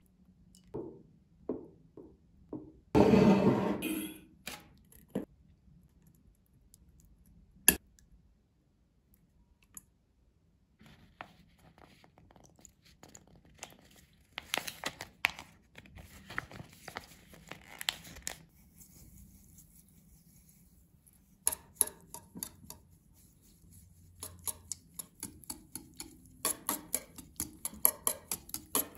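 Kitchen handling sounds: a loud rustle about three seconds in, a sharp click, and soft scraping and pouring noises. Near the end, a wire whisk beats sour-cream cream in a bowl with a rapid, even clinking.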